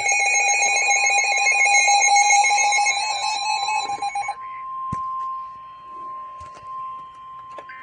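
Emergency alert attention tones. A harsh, rapidly pulsing alarm tone sounds for about four seconds and stops abruptly. A steady single-pitched tone then takes over, the NOAA Weather Radio warning alarm tone that comes before a severe thunderstorm warning is read, with a few faint clicks.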